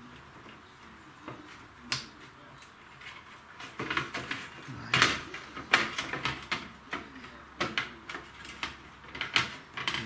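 A hard drive being handled and shifted inside a sheet-metal DVR case: a scatter of sharp clicks and knocks, sparse at first and more frequent from about four seconds in.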